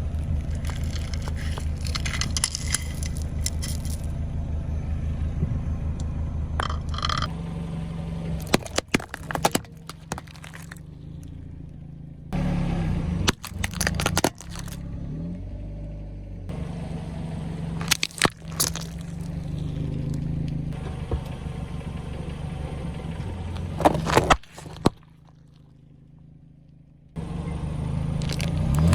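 Car engine running slowly with scattered sharp cracks and crunches as the tyres roll over and crush things. The sound changes abruptly several times, with a quieter stretch near the end.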